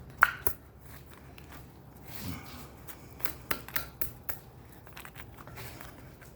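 Sharp metallic clicks and clinks of a chain and hand tools being worked on a hydraulic cylinder: one loud click about a quarter second in, then a quick run of five or six clicks between about three and four and a half seconds.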